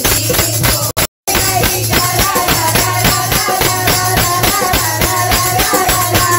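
Upbeat music: a fast, steady percussion beat under a held melody line. The sound cuts out completely for a moment about a second in.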